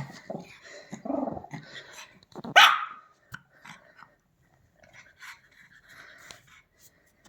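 Pomeranian growling low, then giving one loud, sharp bark about two and a half seconds in: an alarm bark at a strange sound.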